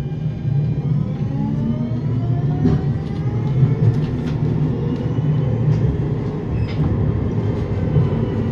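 NF6D low-floor tram accelerating: its drive whines in several tones that rise in pitch over the first three seconds or so and then level off, over a steady running rumble, with scattered clicks from the running gear.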